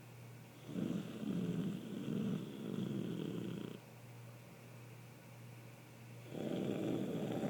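A person snoring: one long snore from about a second in that lasts about three seconds, then the next snore starting near the end.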